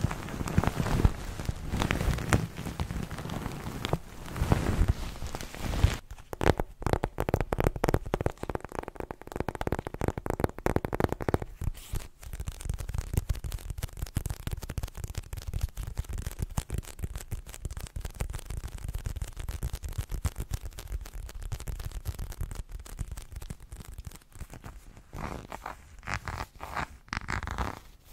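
For the first six seconds or so, a fleece-covered crinkle pillow squeezed and rubbed against the microphone, crinkling and rustling. It then cuts to fingertips and nails tapping and scratching on a photo album's cover in a fast run of small clicks, with a burst of louder rubbing near the end.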